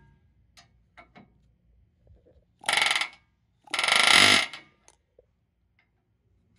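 Pneumatic air hammer with a chisel bit firing in two bursts, a short one and then a longer one about a second long, as it is used to try to drive out old rubber subframe (K-member) bushings.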